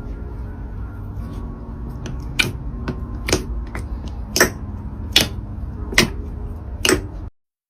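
Slime being squeezed and poked, with a steady low rustle and a series of sharp pops from trapped air, about one a second. The sound cuts off abruptly near the end.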